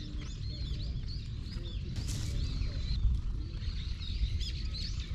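Many small birds chirping and twittering continuously, over a steady low rumble, with a brief hiss about two seconds in.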